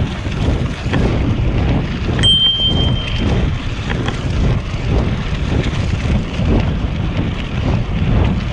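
Wind buffeting a GoPro's microphone on a moving Cannondale CAADX bicycle, with steady tyre rumble. A single brief high ringing tone sounds about two seconds in.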